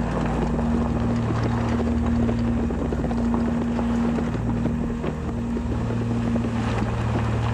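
Car driving slowly along a rough village road: steady engine drone with road and wind noise.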